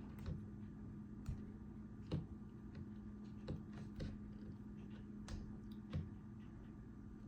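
Scattered light clicks and taps of small metal parts being handled, as an O-ring is picked off the control valve of an MSR WhisperLite International fuel pump. Under them runs a steady low hum.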